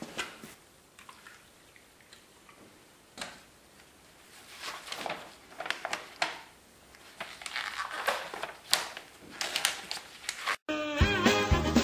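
Paper instruction-manual pages handled and turned, rustling and crinkling in short irregular bursts. Near the end it cuts suddenly to swing-style background music.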